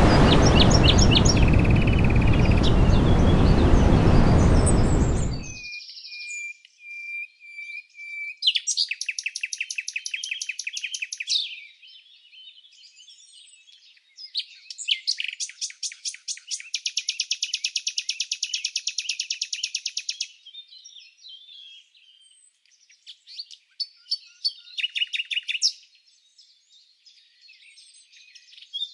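For about the first five seconds a loud, steady rushing noise carries faint bird chirps, then it cuts off abruptly. Songbirds then sing alone: high, rapid trills of evenly repeated notes lasting a few seconds each, with scattered chirps between them.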